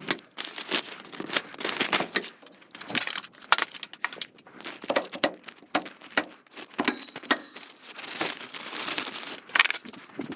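Thin polyethylene plastic sheeting crinkling and rustling as it is handled and pulled, with irregular sharp snaps and clicks.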